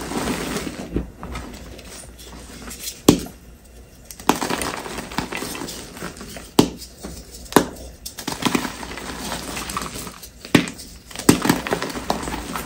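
Reformed gym chalk blocks being crushed and crumbled by gloved hands: several sharp snaps as pieces break apart, with dry, gritty crunching and powder pouring between them.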